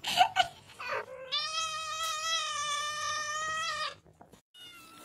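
A domestic cat giving one long, drawn-out meow of steady pitch lasting about two and a half seconds, after a few short noises.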